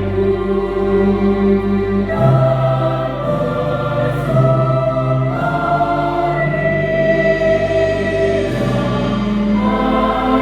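Church choir singing a Christmas hymn in parts, in held chords that change every few seconds.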